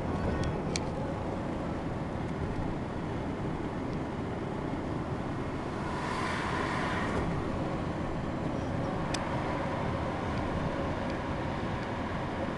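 Steady road and engine noise inside a car cruising at motorway speed, with a brief swell of higher hiss about six seconds in and a few faint ticks.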